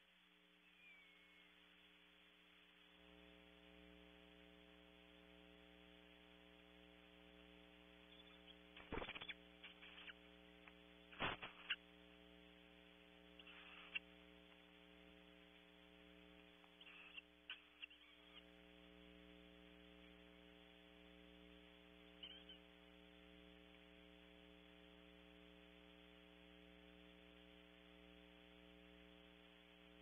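Steady electrical hum from the nest camera's audio that grows fuller about three seconds in, with a few short knocks and scrapes as barn owls shift about in the nest cavity, the loudest pair about nine and eleven seconds in.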